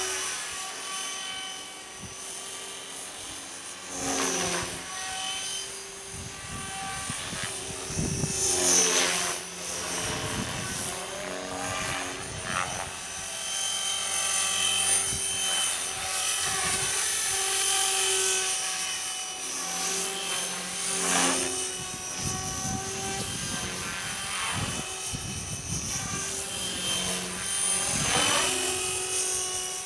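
Radio-controlled model helicopter in flight: a steady whine from its motor and rotor blades that sweeps down and back up in pitch several times as it passes and manoeuvres.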